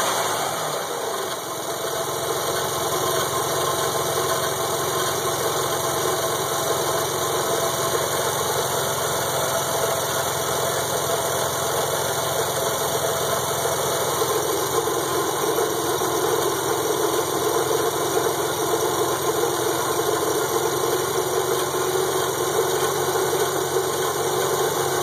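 Nissan 300ZX twin turbo's V6 engine idling steadily. It is running for a coolant bubble test, and the owner suspects a leaking head gasket.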